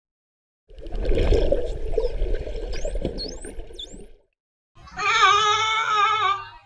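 Underwater rushing water with a few quick dolphin whistles sliding up and down in pitch, then a short gap, and about five seconds in a sea lion's long call, high-pitched and wavering.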